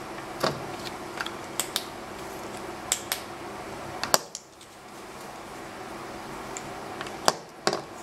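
Washing machine running with a load of leafy vegetables in its drum: a steady hum with sharp clicks and knocks scattered through it. The hum drops away briefly a little past the middle, then picks up again.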